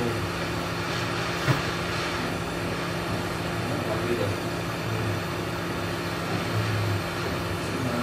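Hot-air rework station blowing steadily over the board with a low hum, heating the A16 processor to loosen its solder so it can be pried off. A single sharp click about one and a half seconds in.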